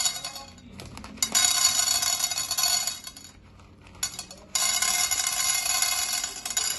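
Dry popping-corn kernels being poured into a cooking pot, a dense rattle of hard grains hitting the pot. The pour stops and restarts: it runs from about a second in to about three seconds, then again from about four and a half seconds.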